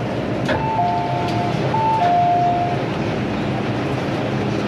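Steady running noise inside an MTR M-Train carriage, with an on-board electronic two-tone chime, a high note then a lower one, sounding twice from about half a second in.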